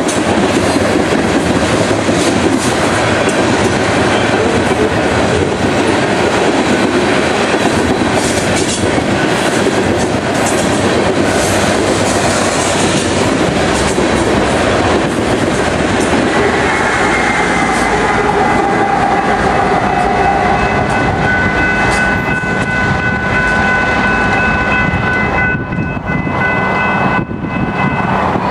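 BNSF coal train's hopper cars rolling past at speed: a steady rumble and rattle of steel wheels on rail with clickety-clack over the joints. In the last third several steady high-pitched tones ring out above the rumble.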